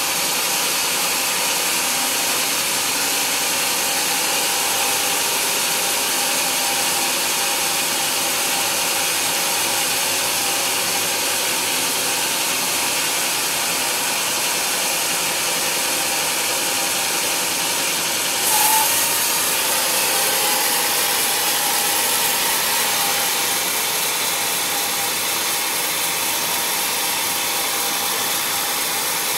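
Band sawmill running, its blade steadily cutting through a thick hardwood slab, with a brief louder surge about two-thirds of the way through.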